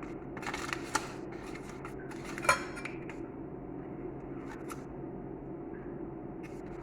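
A metal utensil clinking and scraping against a dish while working the grilled potatoes, with a few short clinks in the first three seconds, the sharpest about two and a half seconds in. A steady low hum runs underneath.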